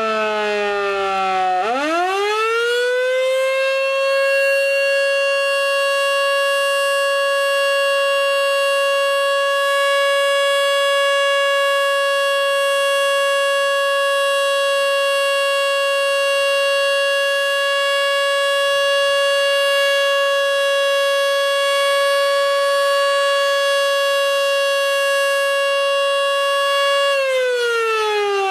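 Federal Signal Model 2 electromechanical fire siren sounding a single tone with strong overtones. It is falling in pitch at the start, is switched back on and spins up to full pitch within about two seconds, holds one steady tone for over twenty seconds, then starts to wind down near the end. The stop-start comes from the siren being switched on and off by hand from a household light switch.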